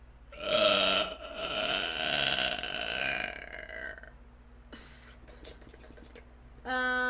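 A woman's long, loud belch lasting about three and a half seconds, its pitch sagging toward the end.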